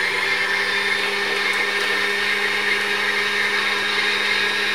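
Janome 2032 sewing machine's electric motor running flat out with the pedal floored, spinning the bobbin winder with the needle mechanism disengaged: a loud, steady whine.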